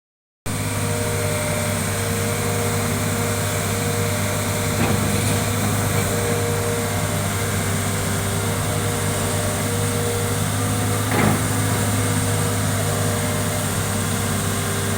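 Hitachi ZX210 hydraulic excavator's diesel engine running at a steady speed, with a short knock about three-quarters of the way through.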